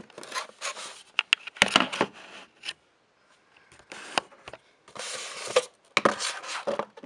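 Cardboard model box being handled and turned over, rubbing and scraping in several bursts, with a few sharp clicks about a second in.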